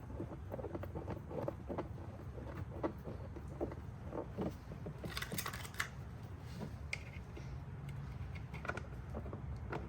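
Scattered light clicks and taps of hand tools and small parts being handled, with a brief bright rattle of clicks about five seconds in, over a low steady hum.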